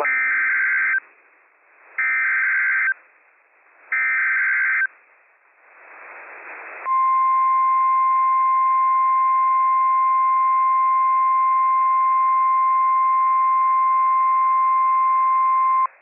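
Emergency Alert System activation on NOAA Weather Radio: the SAME digital header sent three times, each about a second long and a second apart, then a moment of radio hiss, then the steady 1050 Hz warning alarm tone held for about nine seconds before it cuts off. The header carries the coded warning and the alarm tone signals that a warning message is about to be read.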